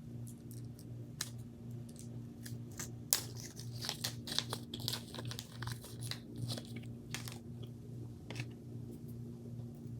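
Small metal screws and RC driveshaft parts being picked up and handled by hand: light clicks and rustles, coming thickest in the middle, over a steady low hum.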